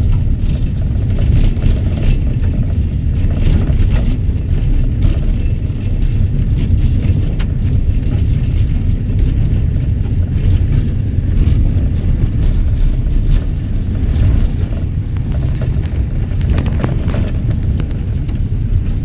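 Steady low rumble of a vehicle driving on a rough dirt road, heard from inside the cabin, with scattered small ticks and clicks throughout.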